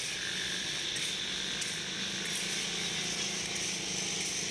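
Peanuts in the shell being stirred through hot salt in a large iron karahi, a steady dry rattling and scraping of shells, salt and metal scoop against the pan as they roast.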